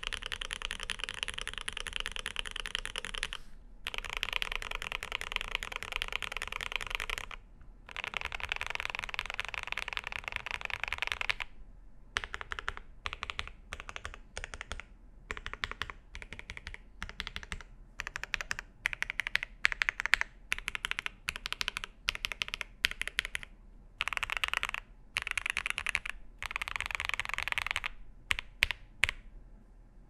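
Typing on a MODE Eighty mechanical keyboard with lubed Lil' Tykes switches, an aluminium plate and GMK keycaps. Three runs of fast continuous typing give way to about twelve seconds of single, spaced key presses, then a few short bursts of typing end in three or four separate strokes near the end.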